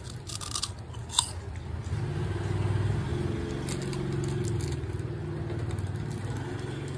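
A puffed prawn-flavoured snack stick bitten with a few crisp crunches in the first second or so, then chewed quietly as it melts in the mouth. A low steady hum runs underneath from about two seconds in.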